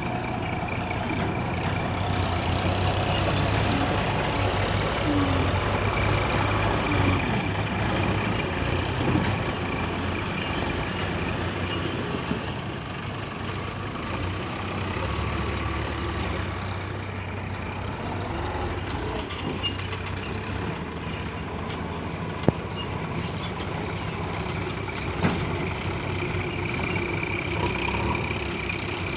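Diesel engine of a JCB 3DX backhoe loader running steadily under working load, its pitch shifting now and then, with a couple of sharp metallic knocks in the later part.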